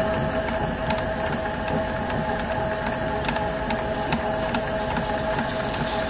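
Mini thermal-transfer ribbon slitter rewinder running, its motor and shafts turning with a steady hum and a thin high whine, with scattered light clicks.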